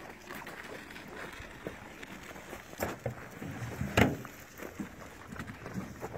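Pigs chewing and crunching fruit: irregular chomping throughout, with two sharp crunches, the louder about four seconds in.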